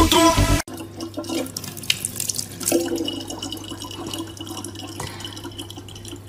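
Music cuts off about half a second in; then a thin stream of water from a faucet runs steadily into an open plastic water bottle, with a low hum underneath.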